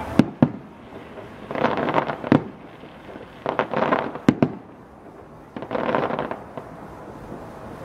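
Aerial fireworks shells going off with sharp bangs, two just at the start and then single ones about 2.5 and 4.5 seconds in. Three spells of dense crackling follow, each under a second long, as the gold stars break up.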